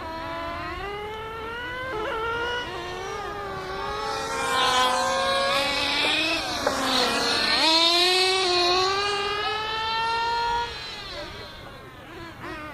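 Two small nitro engines of radio-controlled cars revving hard, their pitches rising and falling as they accelerate and lift off. In the middle the sound grows loud and one pitch drops sharply as a car passes close, then the level falls off suddenly about two seconds before the end.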